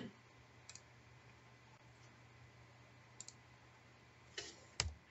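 A few faint computer mouse clicks over near silence, a quick pair about three seconds in and a sharper one near the end.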